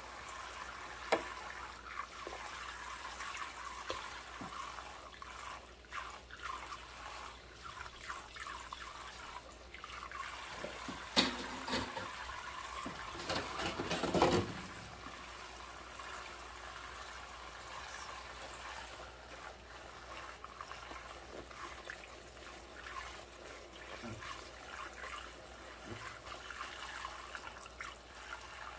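Tap water running in a thin trickle into a stainless steel sink full of soapsuds, while rubber-gloved hands scrub utensils with a sponge. A few sharp clicks of utensils, and a louder stretch of scrubbing and handling about eleven to fourteen seconds in.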